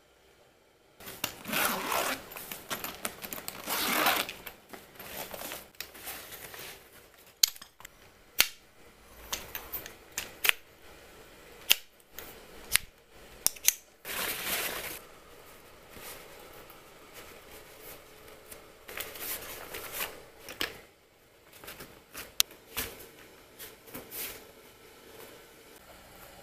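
Rustling and scraping of a fabric bag being handled and opened by hand, in bursts, with a few sharp clicks in between.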